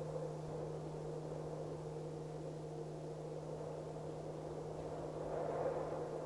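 Meditation singing bowl ringing steadily, with a low hum and a fainter higher overtone, over a haze of wind noise that swells a little near the end.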